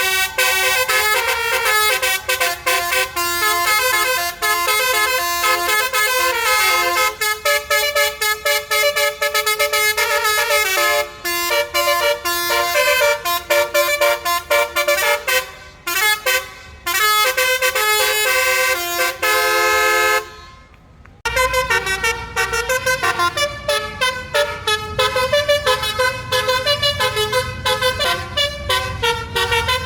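An Indonesian bus's multi-trumpet 'telolet basuri' horn playing a tune in quick, stepping notes. It breaks off briefly about twenty seconds in, then resumes with a low rumble underneath.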